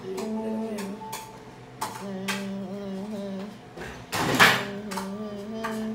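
A voice holding long sung notes among light clicks and clinks, with a louder clattering burst about four seconds in.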